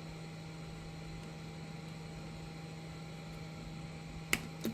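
Steady electrical hum with a hiss beneath it. Near the end, two sharp little clicks, about a third of a second apart, from small phone parts being fitted with tweezers.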